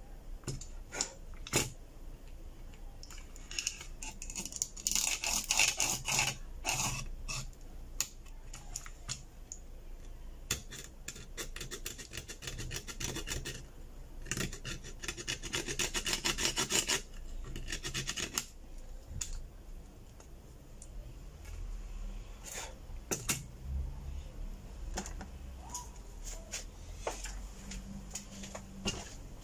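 Thin pick scraping leftover broken LCD glass and adhesive off the edges of a smartphone's frame, in quick repeated strokes. The scraping comes in two longer bouts, about three and about ten seconds in, with lighter scattered scratches later.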